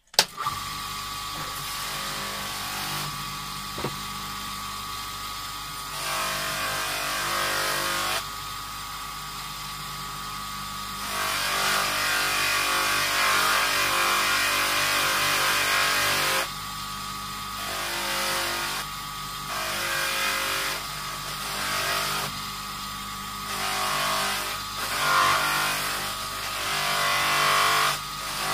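Electric motor spinning a small cloth buffing wheel on an extended shaft, switched on at the start and then running with a steady hum. A brass door handle is pressed against the wheel in spells, each contact bringing a louder rushing hiss of buffing over the hum.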